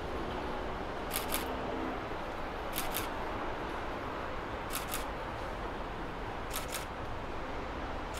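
Camera shutter firing four times, about every two seconds, each shot a quick double click. A photographer is shooting stills as the model changes poses.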